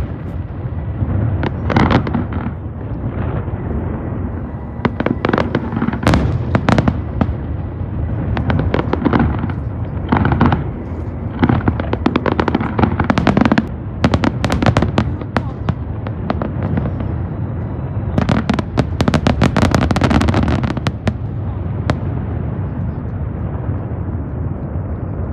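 Fireworks going off: a continuous run of bangs and crackles over a low rumble, thickest about three-quarters of the way through.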